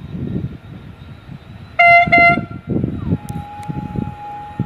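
Train horn: two short loud toots about two seconds in, followed by a longer single note that slides down at its start and then holds steady. An uneven low rumble runs underneath.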